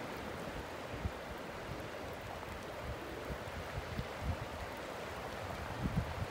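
Steady rushing hiss of a river flowing with broken ice floes and slush, with irregular low rumbles of wind on the microphone.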